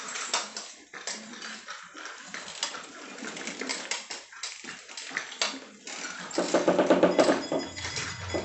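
A child's bicycle with plastic training wheels rolling and rattling over a tile floor, full of small clicks and knocks. Near the end comes a louder buzzing for about a second.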